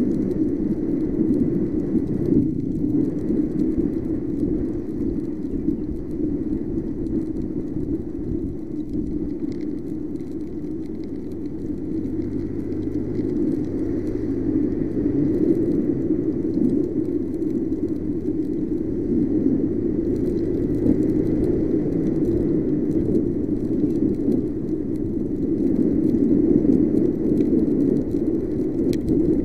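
Steady wind and road noise from a Yamaha NMAX scooter riding at about 50 km/h on a wet road. A faint low engine hum comes through near the middle.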